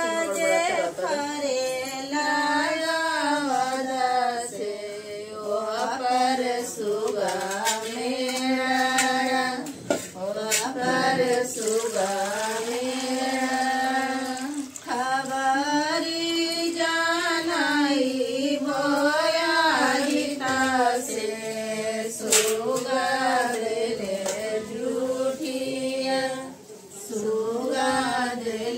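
A woman's voice singing a Chhath devotional song unaccompanied, in long wavering held notes broken by short pauses. A sharp knock sounds about 22 seconds in.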